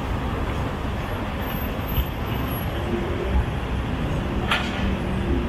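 Steady low rumble of background noise, with one sharp click about four and a half seconds in.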